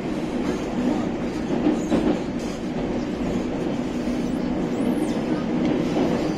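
Moscow Metro train running through the tunnel between stations, heard from inside the carriage: a steady rumble of wheels on rails with a low hum.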